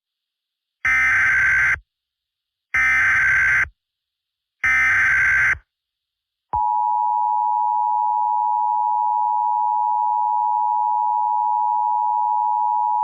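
Emergency Alert System SAME header: three bursts of digital data tones, each about a second long and about two seconds apart. About six and a half seconds in, the steady two-tone EAS attention signal begins and holds.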